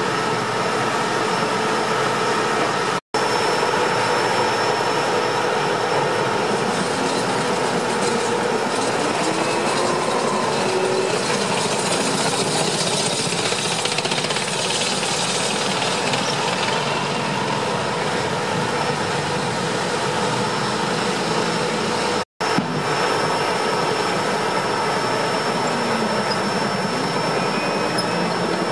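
M1 Abrams tanks driving past in a column: the steady whine of their gas-turbine engines over the clatter of steel tracks on the road. The sound cuts out for an instant twice.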